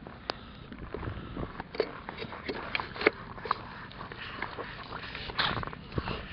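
Close-up handling noise as a crawling baby's hands and body bump and rub against the camera in the grass: a scatter of sharp clicks and knocks over a low rumble, with the baby's breathing and small mouth sounds, and a breathy burst about five seconds in.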